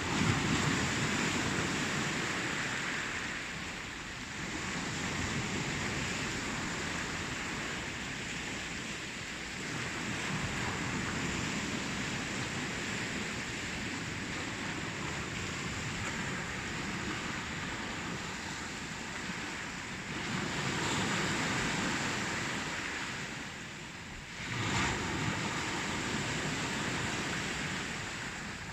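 Ocean waves washing onto a shore, a steady rushing wash that swells and recedes every few seconds, with a louder surge of breaking surf near the end.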